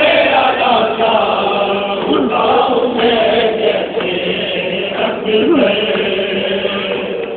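A crowd of men chanting together, many voices overlapping in a steady group chant: Shia Muharram mourning chanting.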